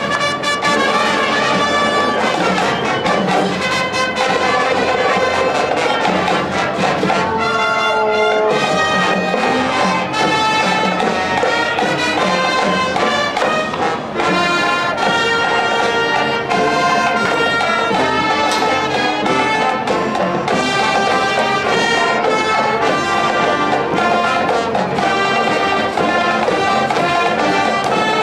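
Marching band playing, led by brass: trumpets and trombones carry a loud, continuous tune with sustained chords.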